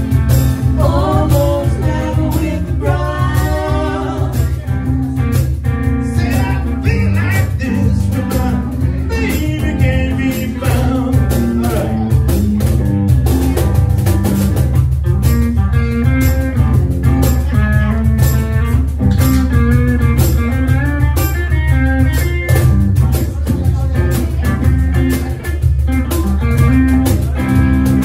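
Live blues band playing: hollow-body electric guitar over a cajón beat, with singing at times.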